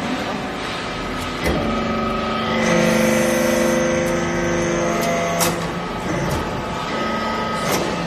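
Hydraulic metal-chip briquetting press working: its pump runs with a steady hum and whine that grows louder while the ram presses the shavings, from about 2.5 to 5.5 seconds in. Sharp clunks come about 1.5, 5.5 and 8 seconds in.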